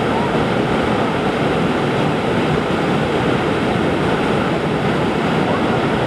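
FlowRider Flow Barrel surf machine: a pumped sheet of water rushing over the riding surface and curling into a barrel wave, with a loud, steady rush.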